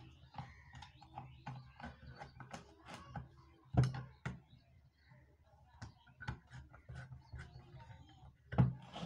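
Small clicks and scrapes of a screwdriver working the screws of a magneto's cast-metal housing as it is fitted back together, with a few louder knocks of metal on the tabletop, the loudest about four seconds in and near the end.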